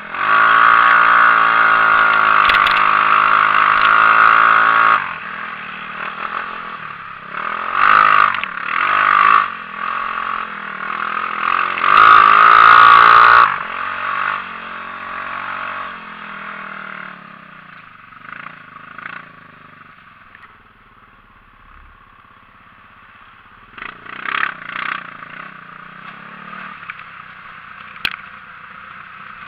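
Xinling 250 cc buggy's engine heard from the driver's seat, running hard for the first five seconds, then rising and falling with bursts of throttle, and running more quietly in the second half with a few short revs.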